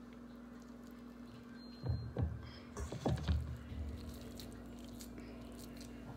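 Hands patting and pressing raw ground turkey into small patties: a cluster of soft, irregular pats and thumps lasting about two seconds, starting about two seconds in, over a steady low hum.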